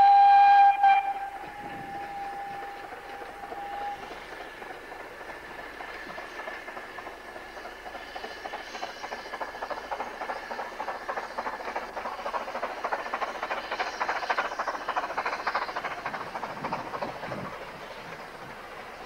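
Ffestiniog Railway narrow-gauge steam train at a distance. A loud multi-note whistle cuts off about a second in, and a fainter single-note whistle lingers to about four seconds. Then comes a rapid rhythmic chuffing and clatter of the train on the move, growing louder to a peak about three-quarters of the way through and fading near the end.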